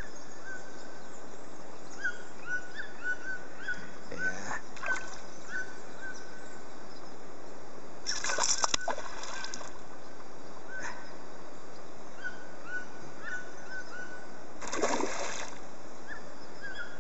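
A hooked fish leaps and thrashes at the river surface, splashing loudly about eight seconds in and again near fifteen seconds, with a smaller splash around four seconds. A bird calls short, repeated notes throughout.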